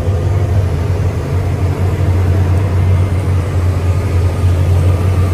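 Engine of a Vector self-propelled sprayer running steadily, heard from inside the cab as a low, even drone.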